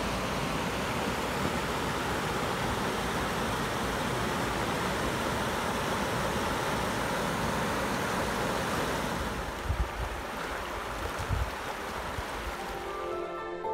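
Virgin River rushing over rocks and small rapids, a steady flowing rush that turns a little quieter about nine seconds in. Two low thumps follow about a second apart, and music fades in near the end.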